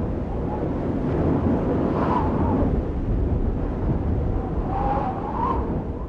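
Outro sound effect: a steady, low, rumbling rush of noise with a faint wavering howl about two seconds in and again near five seconds.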